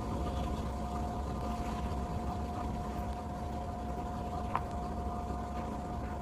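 A steady machine-like hum with a constant mid-pitched tone over a low rumble, and one faint click about four and a half seconds in.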